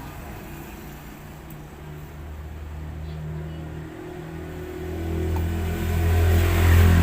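A motor vehicle's engine rumbling, growing louder through the second half as it comes close.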